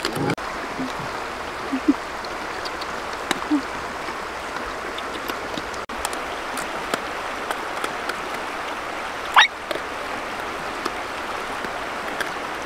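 Steady rush of a shallow river running over rocks, with scattered small clicks and taps. About nine seconds in, one brief high squeal that rises and falls.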